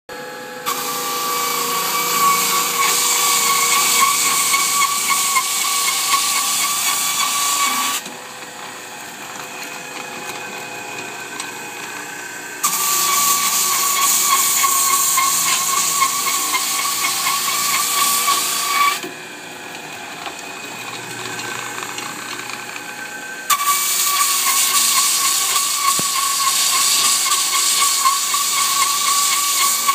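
A walk-behind drum floor sander sanding wooden deck boards. The loud rushing grind with a steady whine comes in three long passes of six to seven seconds each. Between the passes the motor keeps running more quietly.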